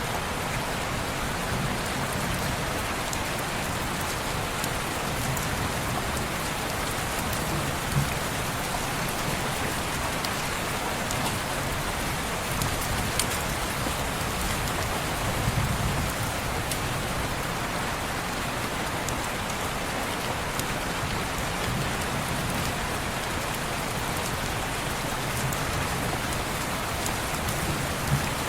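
Steady rain falling on window glass: an even, dense hiss with scattered small ticks of drops. A few brief low thumps stand out, about 8 seconds in, around 15 seconds and near the end.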